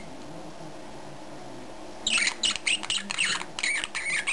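A small animal sneezing: a quick run of short, sharp sneezes, several a second, beginning about two seconds in over a steady low hum.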